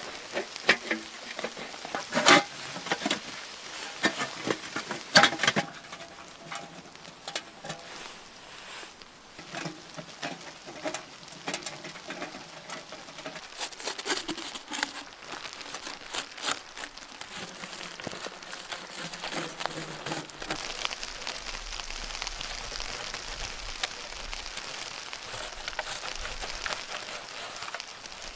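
Sharp knocks and clinks over rustling and crinkling as the small tent stove and its chimney are handled and fitted, the knocks thickest in the first few seconds; in the second half a steady pattering hiss grows.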